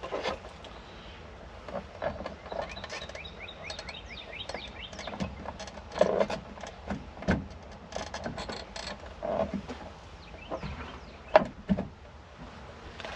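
Irregular clicks, knocks and clatter of hand tools and metal fittings being worked on the windshield frame of a JCB 270T cab as the retaining pieces are fitted and tightened, with a few sharp knocks standing out. Birds chirp in short falling whistles in the background.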